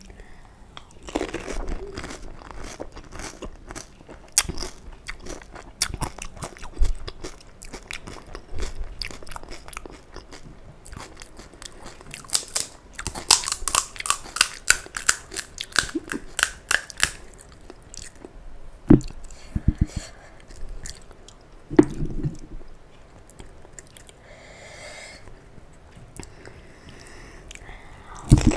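Crisp panipuri (golgappa) shells crunching, with biting and chewing, heard close up. The crunching comes in many short crackly snaps and is densest around the middle.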